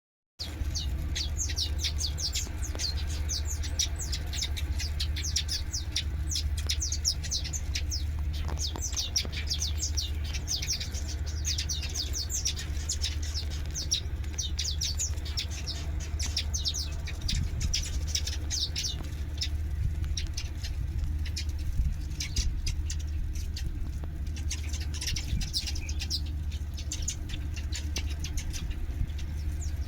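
Many small birds chirping in quick, dense runs of short high notes, over a steady low hum.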